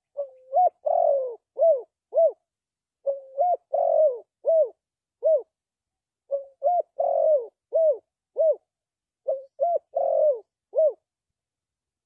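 Spotted dove cooing: four repeated phrases, each a short note, a rising note, a longer wavering coo and two or three quick arched notes, with a pause of about a second between phrases.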